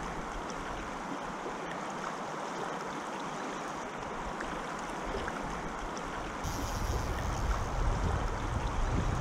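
Shallow river current rushing steadily over a rocky bed. About six and a half seconds in, a louder low rumble joins it.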